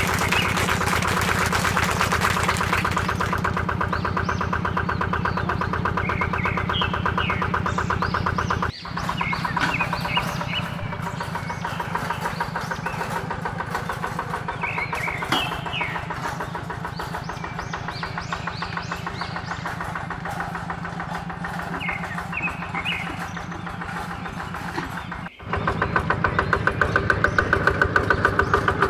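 Yanmar hand tractor's single-cylinder diesel engine running with a fast, even chug. The sound changes abruptly twice, about nine seconds in and near the end, and is louder after the second change.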